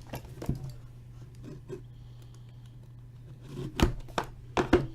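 Hands opening and handling a cardboard trading-card box: light scrapes and taps, then a cluster of sharp knocks near the end, over a steady low electrical hum.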